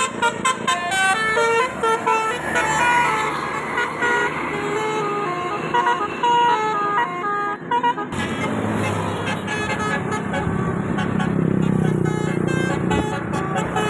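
Bus telolet horn, a Basuri-type multi-tone electric horn, playing a quick tune of stepped notes. About eight seconds in it breaks off abruptly into the steady running of a vehicle engine and street noise, with short horn notes again near the end.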